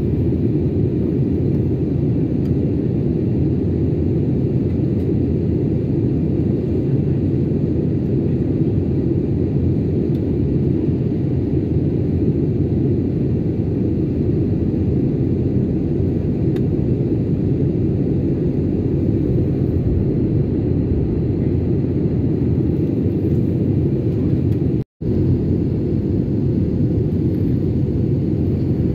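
Steady cabin noise of an Airbus A320-family airliner in flight, heard from a window seat: a constant low rumble of engines and airflow. It cuts out for a fraction of a second near the end, then resumes unchanged.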